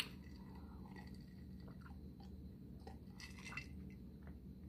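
Faint eating and drinking sounds: a sip from a glass with a small tick of the glass right at the start, then soft chewing and swallowing.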